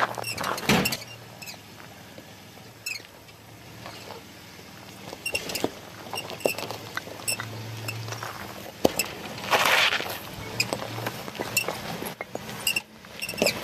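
Toyota 4Runner crawling slowly over a rocky off-road trail: a low engine drone comes and goes under frequent clicks and crunches of gravel and rock under the tyres, with a louder scraping rush about ten seconds in.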